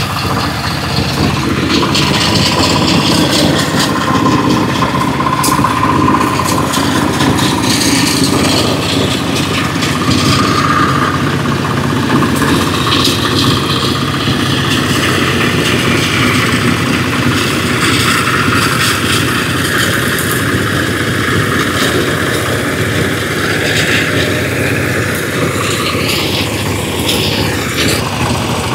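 Single-cylinder diesel engine of a homemade walking-tractor mower running steadily under load while its drum cutter mows through tall grass.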